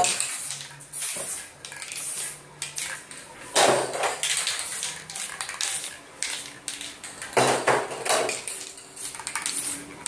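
Aerosol spray-paint can hissing in short bursts of about a second, three times, with metallic clinking and clatter in between.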